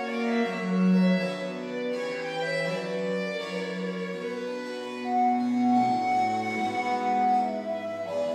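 Chamber ensemble playing: violin melody over cello and harpsichord accompaniment, with held notes changing every second or so.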